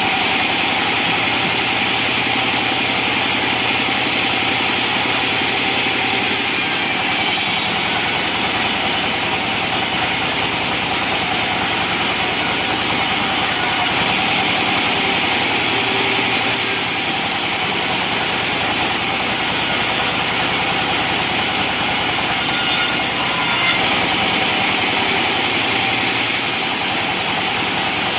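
Benso band sawmill running steadily: a continuous engine drone under a bright high hiss and whine. The hiss swells and eases a few times.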